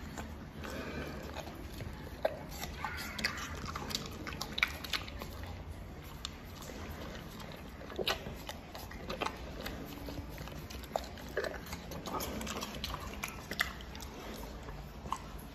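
Spectacled bear licking and chewing small cut pieces of food through the bars, in irregular wet smacks and clicks, over a low steady hum.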